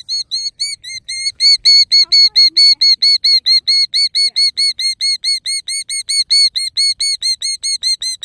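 Adult killdeer giving a fast, loud series of shrill, arched piping notes, about five or six a second, without pause. It is the alarm call of a parent bird near its ground nest during its broken-wing distraction display.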